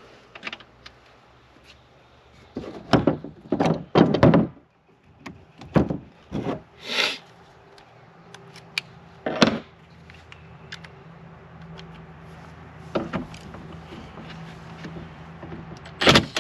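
Tools and metal parts clunking and knocking against a boat's helm as the steering-wheel fitting is worked on: a cluster of sharp knocks about three to four seconds in, a short scraping hiss near the middle, another single knock, then a faint steady low hum through the second half.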